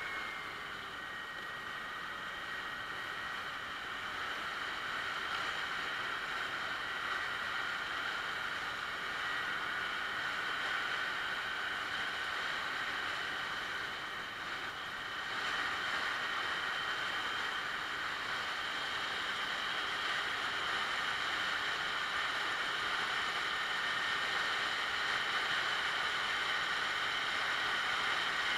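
Yamaha Axis 90 scooter's two-stroke single-cylinder engine running at a steady cruise while riding, mixed with wind rushing over the microphone. The level dips briefly about halfway through and then picks up again. The engine runs with its clogged air-cleaner box intake freshly cleared.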